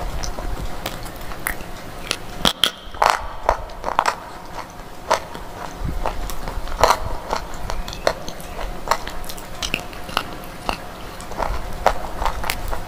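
Close-miked chewing of a mouthful of slate pieces: sharp, irregular crunches, with a denser, louder run of them about three seconds in and again near seven seconds.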